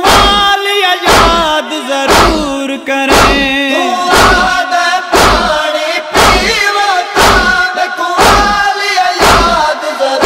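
Deep matam (chest-beating) thuds about once a second under a wordless chorus humming a wavering melody: the interlude between verses of a noha, a Shia lament.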